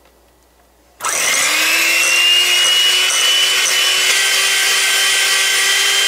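Electric hand mixer switched on about a second in. Its motor whine rises quickly in pitch and then runs steadily as the beaters whip cream and condensed milk.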